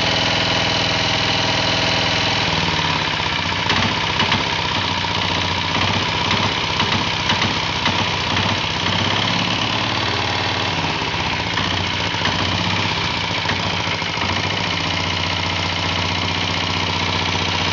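Single-cylinder diesel engine of a diesel-converted Royal Enfield Bullet motorcycle idling steadily with a knocking beat; its note shifts a little about two seconds in.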